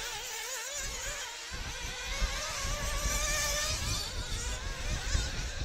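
Several 1/8-scale nitro RC buggy engines buzzing at high pitch, their pitch wavering up and down as the cars accelerate and brake around the track. A low rumble joins underneath about a second and a half in.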